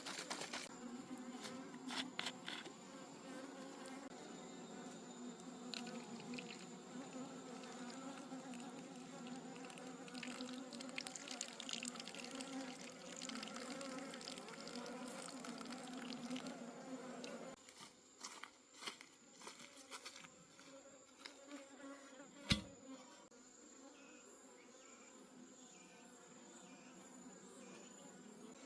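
Honeybees buzzing as a steady, many-winged hum, which drops away sharply about 17 seconds in, leaving fainter scattered sounds and one sharp click a few seconds later.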